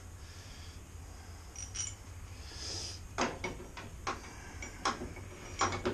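A few sharp, light clicks and taps, about five at uneven spacing, in the second half, with a brief faint hiss shortly before them: a bolt and small hardware being handled while the bolt is readied with thread locker.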